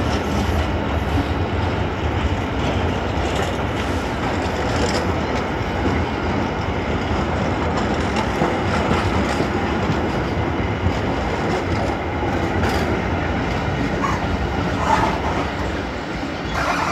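Freight train of empty container flat wagons rolling past, wheels and bogies clattering and rumbling steadily, with a few sharper clanks near the end as the tail GBRf Class 66 diesel locomotive comes by.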